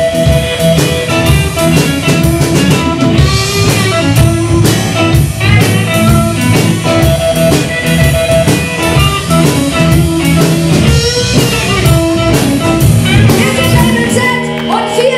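Live blues-rock band: electric guitar lead over bass and a drum kit keeping a steady beat. The band sound cuts off about a second before the end, and a thinner sound begins.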